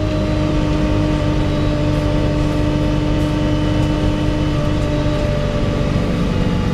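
Diesel engine of a MAN-chassis Alexander Dennis Enviro300 single-deck bus running steadily under way, heard from inside the passenger saloon, with an engine whine whose pitch drifts slightly down and fades about five seconds in.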